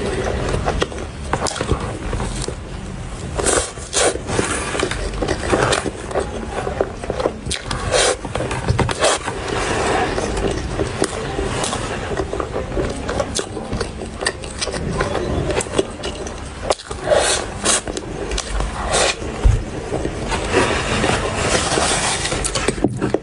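Close-miked mouth sounds of chewing a soft, cream-filled choux pastry cream puff: irregular wet clicks, smacks and crackles.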